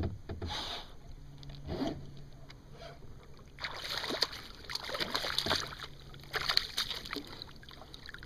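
A hooked bass thrashing at the water's surface beside a kayak as it is reeled in, with bursts of splashing about halfway through and again briefly later.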